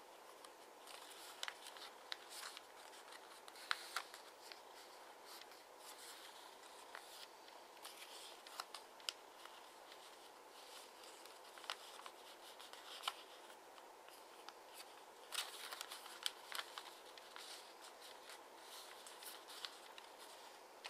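Origami paper rustling and crackling faintly as hands fold and press its flaps: irregular small crisp crinkles and taps, a few sharper than the rest.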